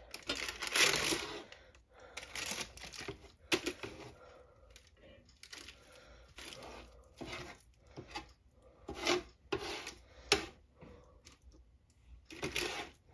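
Irregular scraping and rustling as a red plastic slotted spatula scrapes soft roasted pumpkin flesh off its peel on parchment paper, with a few sharp taps, one louder tick about ten seconds in.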